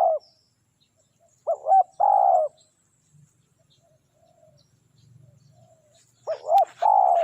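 Spotted dove cooing: two song phrases a few seconds apart, each of two short coos followed by a longer drawn-out coo.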